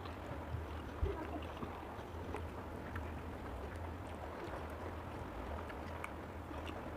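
Quiet eating at a meal: faint scattered clicks and a soft knock about a second in, over a steady low hum.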